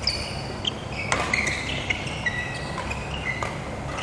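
Badminton rally: a few sharp racket hits on the shuttlecock, mixed with short high squeaks of court shoes skidding on the mat floor.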